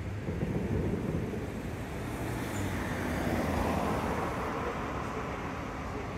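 Road traffic: cars driving past on a city street, with one vehicle passing close and swelling then fading around the middle.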